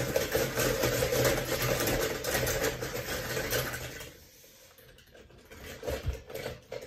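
Die-cast Disney Cars toy cars clattering against each other in a plastic bowl as they are stirred by hand. The rattling stops about four seconds in, followed by a few light clicks as one car is picked out.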